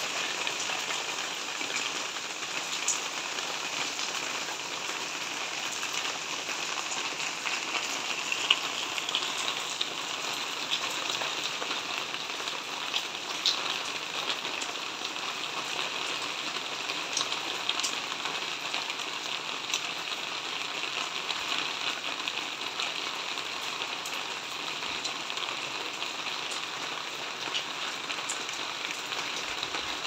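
Heavy rain falling steadily, with a few louder single drop hits standing out now and then.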